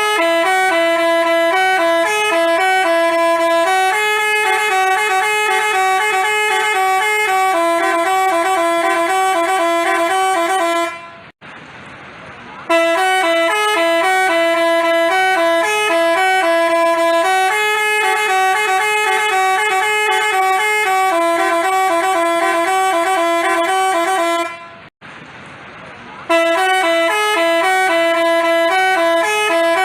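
Telolet basuri bus horn playing a fast multi-note tune, with the same phrase repeated three times and brief breaks about eleven and twenty-five seconds in.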